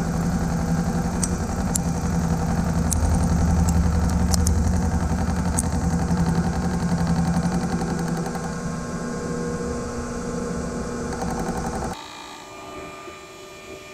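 1941 Bridgeport milling machine face-milling a square metal bar: a steady, loud cutting drone from the spinning face mill, with a few sharp ticks. About 12 s in the cutting noise drops away suddenly as the cutter runs off the end of the bar, leaving a lower steady hum.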